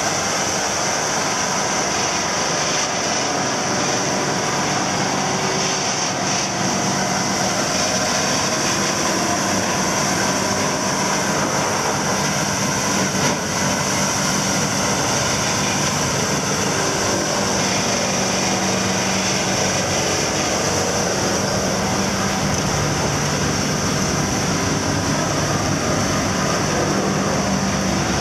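Earthsaver P13 wood grinder with a CAT 3412 V12 diesel engine, running steadily under load while grinding wood into mulch. A continuous dense grinding noise sits over a steady engine tone.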